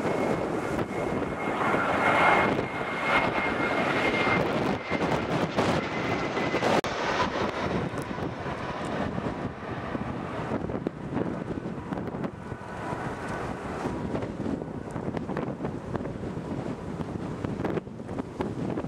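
Twin-engine jet airliner on final approach to land, its engines making a steady rushing drone with a high whine over it for the first several seconds, the whine fading after that. Some wind on the microphone.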